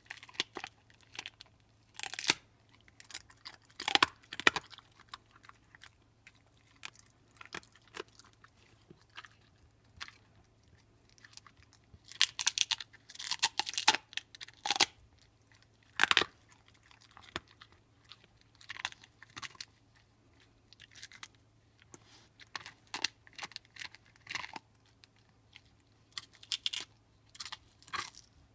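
A pit bull gnawing on a big beef bone: irregular sharp crunches and cracks of teeth on bone, coming in clusters with short pauses between, with a dense run of crunching about halfway through.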